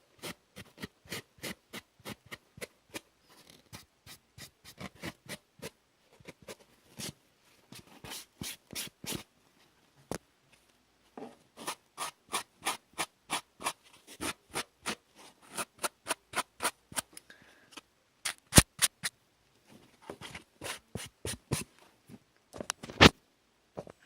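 Scissors snipping hair in quick runs of crisp cuts, about three to four a second, with short pauses between runs and a couple of louder snaps in the second half.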